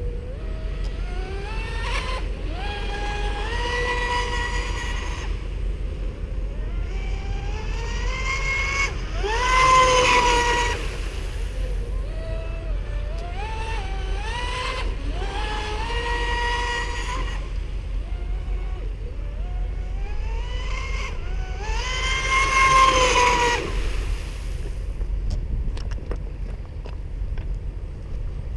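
Whine of a TFL Ariane 2 RC speedboat's brushless electric motor on a 6S battery pack. It makes four hard runs, its pitch climbing in steps as the throttle is opened and then holding high, and is loudest about ten seconds in and again near twenty-three seconds. The whine fades out near the end over a low steady rumble.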